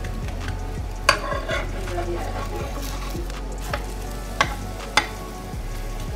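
Steel spatula tapping and scraping on a flat griddle as buckwheat-flour and potato flatbreads fry with a light sizzle. There is a sharp click about a second in and two more near the end.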